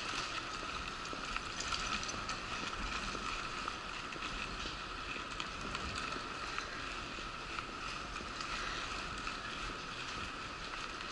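Wheelchair rolling steadily across a hard floor: a steady whine with small clicks and rattles scattered through it.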